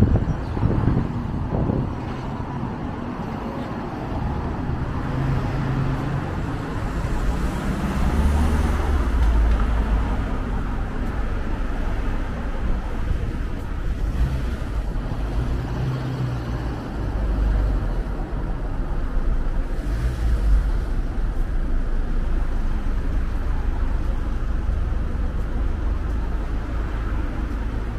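Town street traffic: cars and vans passing on the road, a steady low rumble of engines and tyres that swells and fades several times as vehicles go by.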